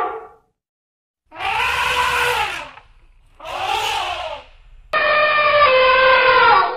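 African elephant calves calling: three high, wavering trumpet-like calls with a little over a second between them, the last the longest.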